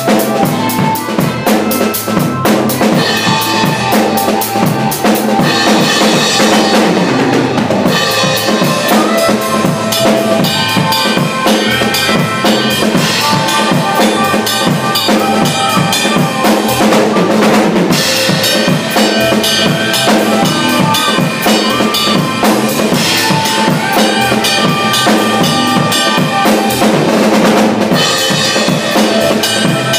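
Acoustic drum kit played in a continuous groove without a break: bass drum, snare and cymbals struck together.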